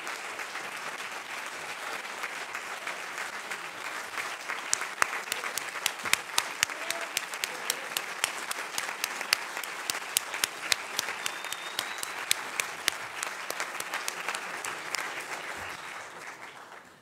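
A large audience applauding, a dense even clapping with single sharp claps standing out through the middle. It dies away near the end.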